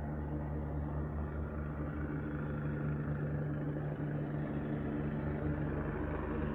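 Helicopter hovering low overhead: a steady drone with a fast, low pulsing beat from the rotor blades, which the recorder calls a really bad noise.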